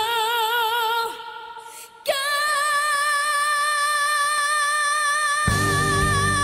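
Background music: a high voice sings long held notes with vibrato. The sound dips briefly just before the two-second mark, and a full band with drums comes in near the end.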